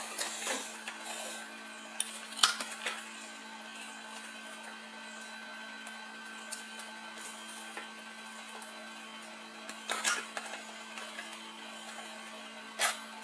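A steady hum runs underneath, with a few short rustles and taps as a shrink-wrapped cardboard product box is handled, about two seconds in, around ten seconds in and near the end.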